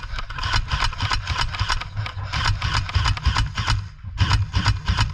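Several airsoft guns firing rapid, overlapping bursts of shots, with a brief lull about four seconds in.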